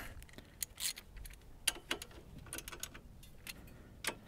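Scattered light metallic clicks and taps of a 15 mm socket and hand ratchet being handled on a car's front caliper bracket bolts.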